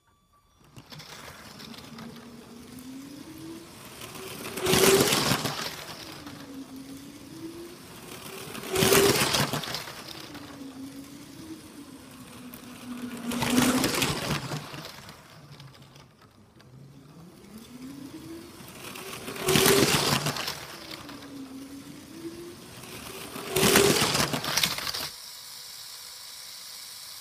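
Lego train running laps on plastic track, its electric motor whining and rising and falling in pitch, with a loud clatter of wheels on the track each time it passes close, five times about four to five seconds apart. Near the end the running stops and only a steady hiss is left.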